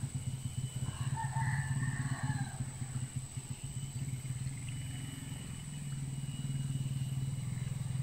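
A small engine running steadily with a low, pulsing hum that shifts slightly about six seconds in.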